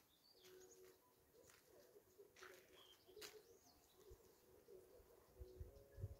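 Faint birds calling, almost silent overall: a low, repeated cooing note with a few short high chirps over it. A few soft low bumps come near the end.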